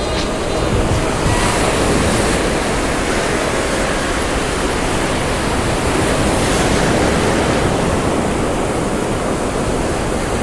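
Ocean surf breaking and washing through shallow water, a loud, steady rush.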